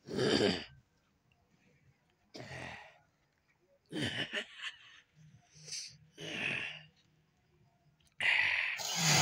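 An excited ox snorting: about six forceful, breathy huffs at irregular intervals, the loudest at the start and near the end.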